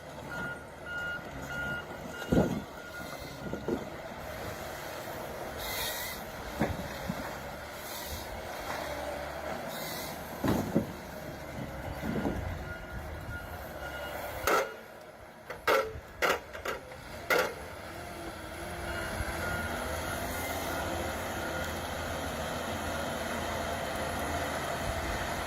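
Heavy forestry machine running steadily, with a reversing alarm beeping near the start and again later, and several sharp knocks in the middle.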